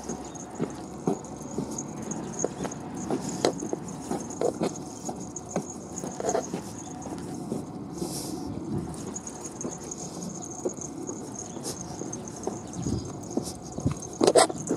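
Footsteps on asphalt from small long-haired Chihuahuas and the person walking them: a light, irregular pattering of paws and shoe scuffs, with a few louder knocks near the end.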